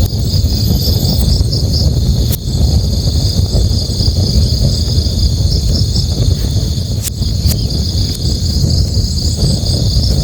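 Crickets chirping in a steady pulsing trill over the low, even rush of a river, with a few sharp pops from a crackling campfire, three of them spread through the stretch.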